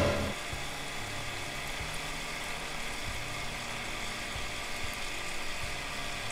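Homemade siphon's 12 V mini water pump running steadily, drawing aquarium water and debris up through a clear hose, with a low hum and a few soft knocks. A loud sound dies away at the very start.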